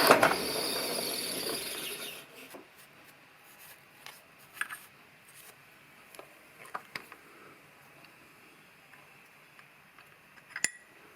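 A workshop machine running down after being switched off, its noise fading away over about two seconds. Then a few light clicks and taps, with one sharper click near the end.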